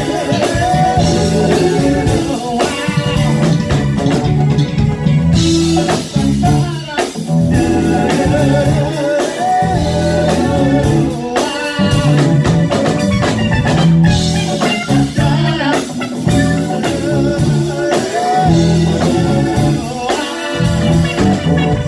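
Live band playing: a prominent electric bass line under electric guitar, drum kit and congas.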